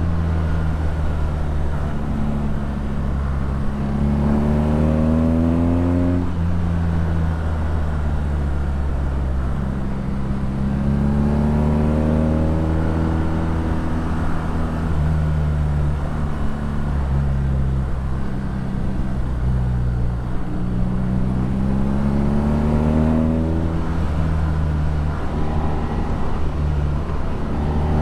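BMW R nineT's boxer twin through an Akrapovič exhaust, pulling under load. The engine note rises several times as the bike accelerates and drops back in between.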